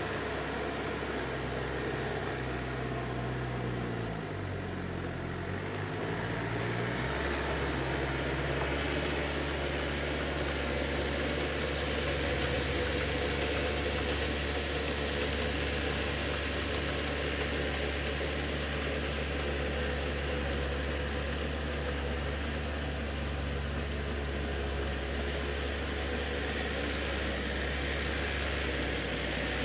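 Farm tractor engine running steadily under load as the tractor tills a flooded rice paddy. A few seconds in, the engine note dips and then rises back before holding steady.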